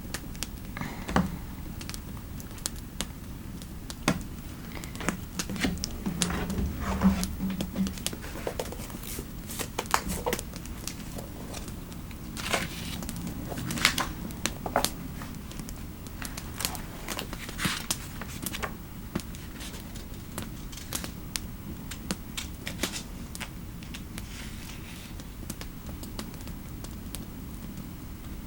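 Irregular crinkling and crackling at a desk, with scattered sharp clicks and pops over a low steady fireplace background; the clicks come thickest in the middle stretch.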